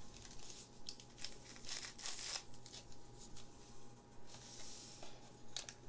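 Foil booster packs crinkling and rustling softly as they are handled and set down, in short scattered rustles, with a longer crinkle about four and a half seconds in.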